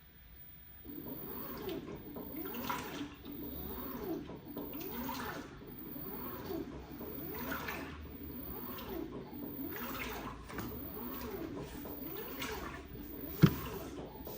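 LG WT16WV6 16 kg top-loading washing machine churning towels in rinse water: repeated sloshing swishes about once a second, starting about a second in. One sharp knock near the end.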